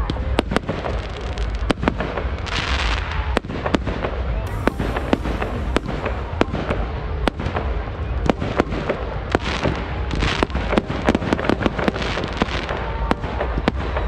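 Aerial fireworks going off in a rapid string of sharp bangs and pops, several a second, with two stretches of hissing, one a few seconds in and one about ten seconds in, over a steady low rumble.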